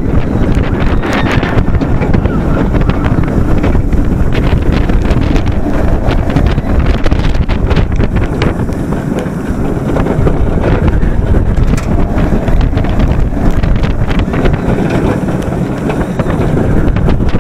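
Wind rushing over the microphone at speed, over the rumble of a Bolliger & Mabillard hypercoaster train running along its track, with scattered sharp clicks and rattles.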